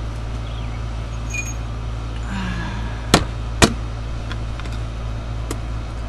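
Handling of motor oil bottles while filling the engine: a light metallic clink, then two sharp plastic clicks about half a second apart and a fainter one later, over a steady low hum.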